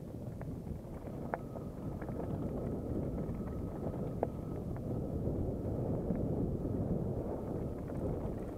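Wind rushing over the camera microphone and mountain-bike tyres rolling down a loose, stony gravel trail, with scattered sharp clicks and rattles from stones and the bike. The rush grows louder over the first few seconds as speed picks up.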